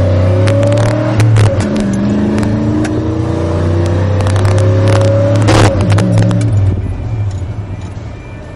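1991 Chevy 1500 pickup's engine accelerating hard from a 30 mph rolling start: its pitch climbs, drops at a gear change just over a second in, climbs again for about four seconds and drops at another shift, then the engine eases off and quiets near the end. Scattered sharp clicks and rattles sound over it.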